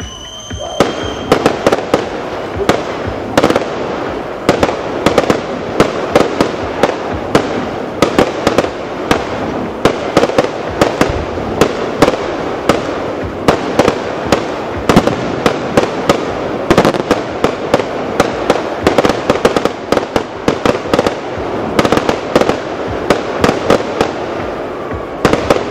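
Fireworks display: a dense, continuous barrage of aerial shell bursts, with sharp bangs several times a second from about a second in, over a steady background of smaller pops and crackling.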